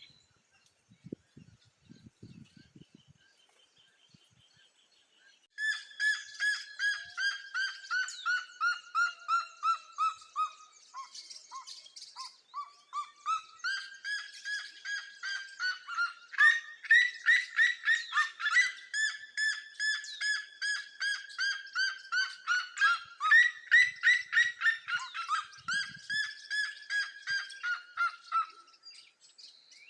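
A bird calls a long, loud series of rapid repeated notes, about three a second, starting about five seconds in and ending near the end. The notes slide gradually lower in pitch, then climb again, and in the middle two series overlap like a second bird joining in.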